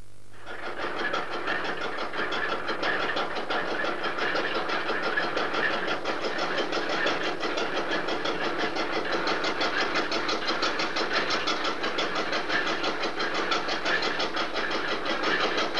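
Drilling rig machinery running steadily, an engine-like clatter with a fast, even pulse, as drill pipe is worked on the rig floor. It starts about half a second in.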